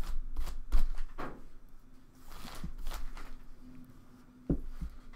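Handling noise from hands working at a counter: rustling and scraping, with several dull thumps in the first second and a sharp knock about four and a half seconds in, followed by a lighter one.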